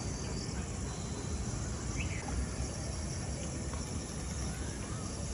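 Outdoor ambience after rain: a steady hiss with a low rumble underneath, and one short high chirp about two seconds in.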